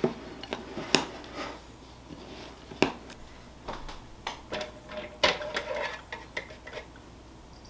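A utensil clinking and scraping against a ceramic bowl while stirring, then scattered knocks and handling sounds as a cake is set down on a plastic cake turntable. The sharpest knocks come about one, three and five seconds in.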